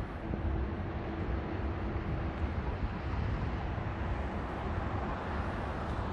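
Outdoor city street ambience: wind buffeting the microphone over a steady rumble of traffic, with a faint steady hum in the first two seconds or so.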